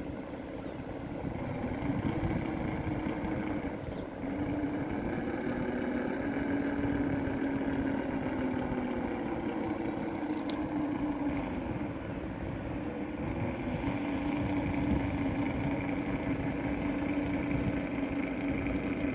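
Electric motor and gearbox of a 1/10-scale FTX Mauler RC crawler whining as it creeps back and forth, the pitch stepping up and down with the throttle. Short high-pitched buzzes break in a few times.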